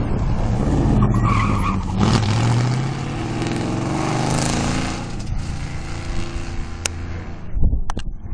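A rally car's engine revving hard as it accelerates past at speed, its pitch climbing and falling through the gears, then fading away about five seconds in. A few sharp clicks near the end.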